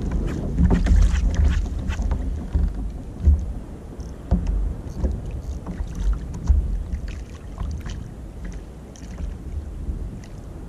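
Water sloshing and slapping against a fishing kayak's hull on choppy sea, with a low wind rumble on the microphone and a few sharp knocks.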